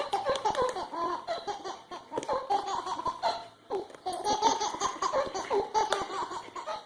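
A baby laughing, in a long run of short, repeated giggling bursts.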